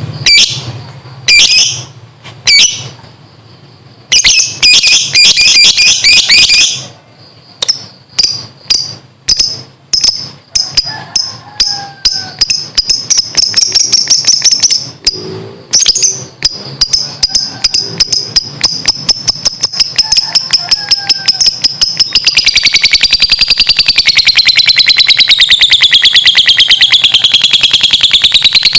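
Lovebird calling in sharp, high chirps that come faster and faster until, about three quarters of the way in, they run together into one long, rapid, wavering trill: the lovebird's 'ngekek' song.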